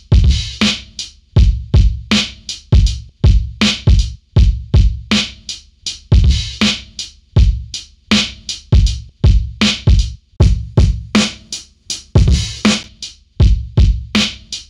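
Drum group loop playing back through a Cerise EQ set slightly differently on left and right, and a soft clipper, for analog-style saturation. It is a fast, steady pattern of punchy drum hits, about four a second, each with a low thump and a bright top.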